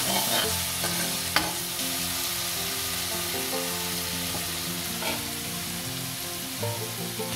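Onion and garlic-ginger paste frying in hot ghee in a pan, a steady sizzle as it is stirred, with a couple of sharp taps of the spoon near the start. Soft background music plays underneath.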